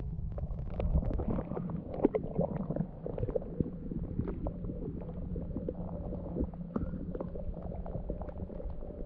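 Muffled rumbling, knocking and clicking of water moving around an action camera held in shallow lake water and raised to the surface. A steady low hum joins about three seconds in.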